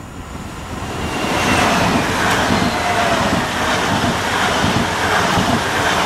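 Electric train running past on the line: a loud rush of wheels on rails with a faint whine on top, swelling about a second in and then holding steady.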